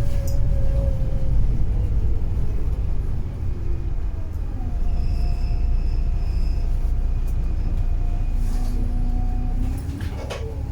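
Wright Pulsar 2 bus's Cummins ISB diesel engine and Voith automatic gearbox running under way: a steady low rumble with faint whining tones that shift in pitch, and a few clicks near the end.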